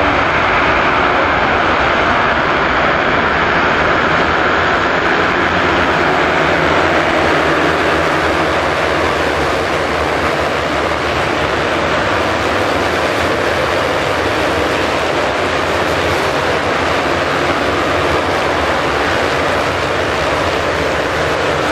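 Dozens of motocross dirt bikes pulling away together in a mass start, their engines blending into one loud, continuous drone that eases a little after the first several seconds as the pack spreads out.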